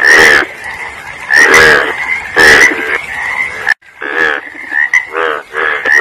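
Frogs croaking: short calls repeated roughly once a second, each a quick run of pulses. The sound drops out briefly a little past the middle.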